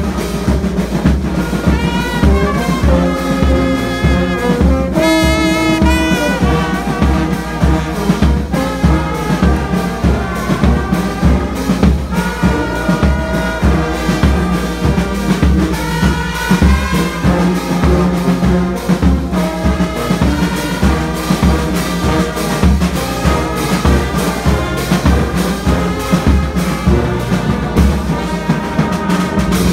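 Brass band playing at close range, with tubas, euphoniums and horns sounding full chords over a steady, regular beat in the bass.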